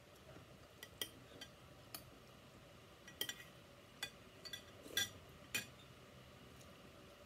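Metal spoon and fork clinking and scraping on a ceramic plate while eating: a scattered series of short, sharp clinks, the loudest about five seconds in.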